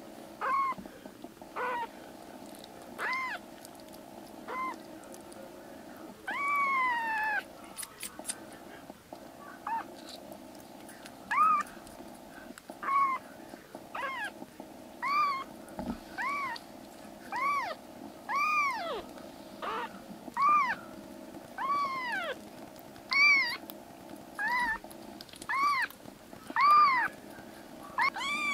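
Very young black kitten mewing over and over: short high-pitched mews that rise and fall in pitch, coming about once a second in the second half, over a steady hum.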